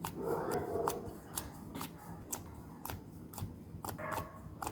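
Homemade hair-cream and wheat-flour slime squeezed and stretched by hand, giving off sharp wet clicking pops about twice a second, with soft squishing in between.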